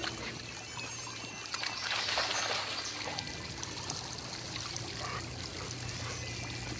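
Water jets of a dog splash pad spraying and splashing onto the water in the pad and the grass around it: a steady hiss of falling water that swells a little about two seconds in.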